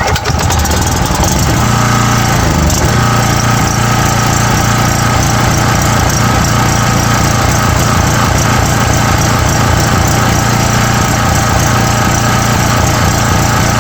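Small portable generator's engine catching and running steadily, its note settling within the first couple of seconds.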